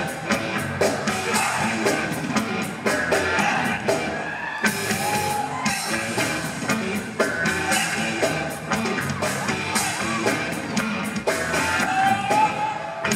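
Live rock band playing: electric bass, drums hitting on a steady beat, and a singing voice, heard loud in a large hall.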